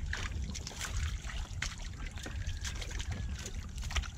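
Water trickling and dripping with scattered small clicks and knocks, over a steady low rumble.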